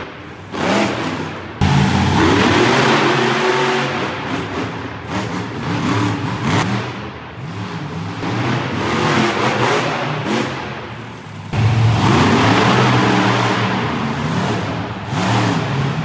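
Monster truck engines revving hard and letting off, the pitch rising and falling again and again. The sound jumps suddenly louder about a second and a half in and again near twelve seconds.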